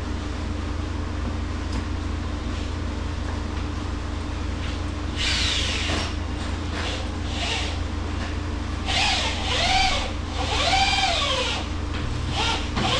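Power drill driving screws into pressure-treated wood, its motor pitch rising and falling in several short runs from about five seconds in, over a steady low hum.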